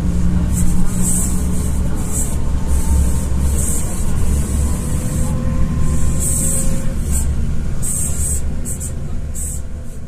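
Road vehicle running, a steady low engine rumble and road noise with irregular bursts of hiss on top.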